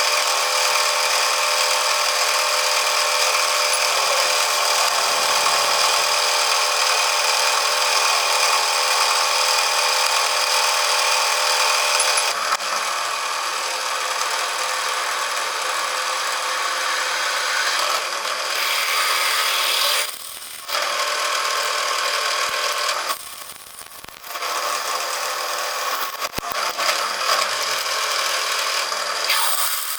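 A power machine tool running and cutting metal stock: a steady, loud mechanical whine over a cutting hiss, dropping off briefly twice in the second half.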